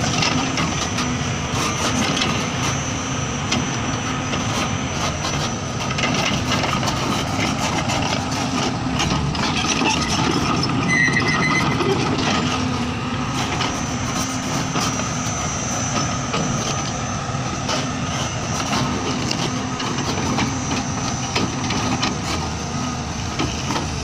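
Caterpillar 320 excavator's diesel engine running as its log grapple works the logs, with a steady high whine and scattered knocks and cracks of wood and bark.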